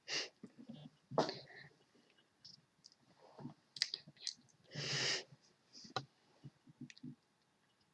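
Scattered small clicks and taps, with a short rush of noise about five seconds in.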